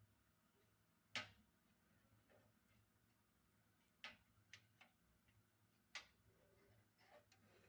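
Scattered faint clicks and light knocks, about six in all, the sharpest about a second in and again near four and six seconds in, over a low hiss.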